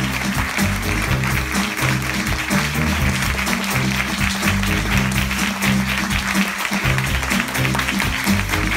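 Audience applauding steadily over curtain-call music with a steady, rhythmic bass line played over the theatre's sound system.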